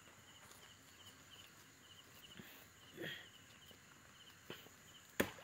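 Crickets chirping steadily in short, evenly repeated high chirps. A brief soft sound comes about three seconds in, and a single sharp click near the end is the loudest thing heard.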